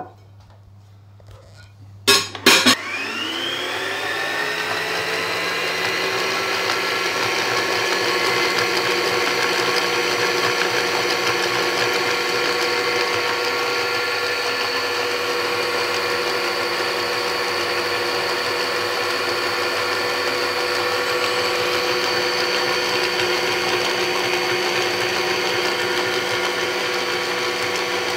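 Hoover Automix 8924 food mixer switched on with a few sharp clicks about two seconds in. Its motor rises in pitch as it spins up, then runs steadily.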